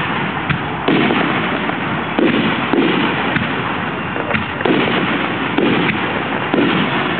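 Fireworks display: a rapid run of aerial shell bursts, a new sudden bang every half second to second, over continuous crackling and rumbling between them.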